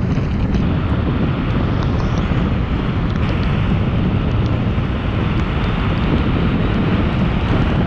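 Steady wind rumble buffeting a helmet-mounted action camera's microphone on a moving motorbike in the rain.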